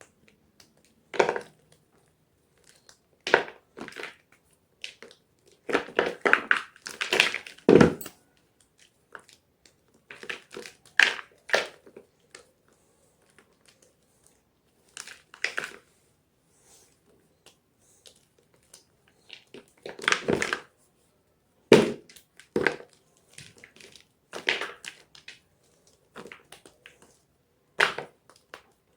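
Gym chalk being crunched: a series of separate, crisp crunches with silent gaps between them, coming more thickly around six to eight seconds in and again around twenty seconds in.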